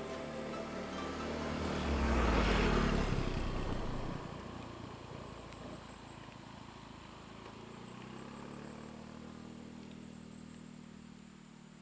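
A motor engine passing by: it swells loudest about two to three seconds in and fades, then a quieter low engine hum rises and falls away.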